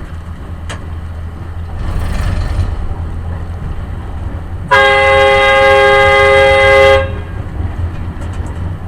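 Multi-tone air horn sounds one steady chord blast of about two seconds, about halfway through, over a vehicle engine running low and steady.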